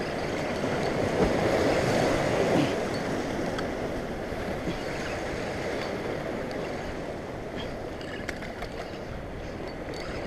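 Ocean surf washing and breaking over the jetty's rocks, swelling loudest a second or two in and then easing off.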